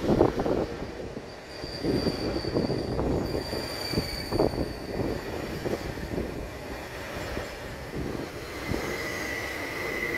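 Electric multiple-unit commuter train running slowly along the platform: a steady rumble of wheels with irregular knocks over the rail joints. A high metallic squeal rings out from about a second and a half in for a couple of seconds, and another, lower squeal starts near the end.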